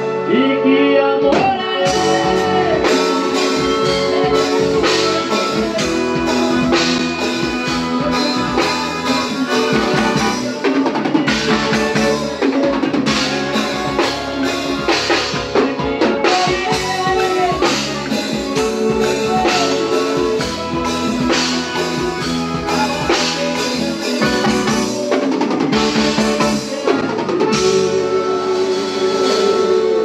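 Live forró band playing, with a drum kit keeping a steady, busy beat under sustained chords and melody lines.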